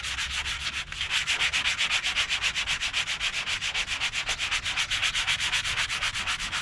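Block sanding by hand: 180-grit sandpaper on a rounded sanding block rasping over guide-coated primer on a fiberglass spoiler, in fast, even back-and-forth strokes with a brief pause just under a second in. This is the final blocking of the primer to level the surface and find high spots.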